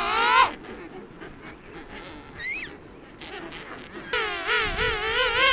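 King penguins calling: a loud warbling call, wavering up and down in pitch, ends about half a second in. A brief rising whistle comes near the middle, and another long warbling call starts about four seconds in.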